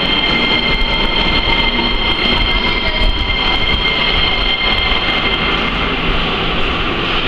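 Sofia Metro train running in the station: a loud, steady rumble with a high-pitched squeal held over it.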